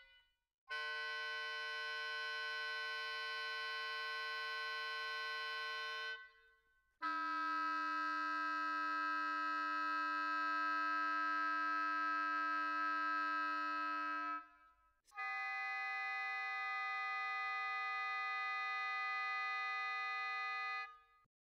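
A recorded oboe playing three long, held multiphonics, each lasting six to seven seconds, with brief silences between them.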